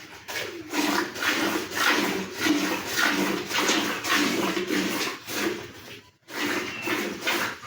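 Cow being milked by hand: jets of milk squirting into a pail in rhythmic spurts, about two a second, with a brief pause about six seconds in.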